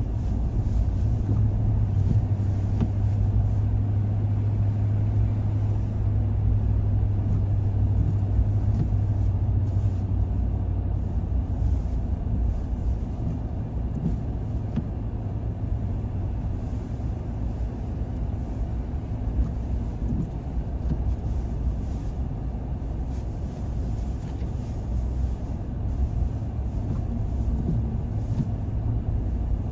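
A car driving along, a steady low rumble of engine and road noise. A low steady hum fades away about ten seconds in.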